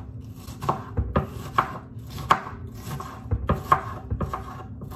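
Kitchen knife chopping an onion on a wooden cutting board: irregular sharp knife strikes, roughly two a second.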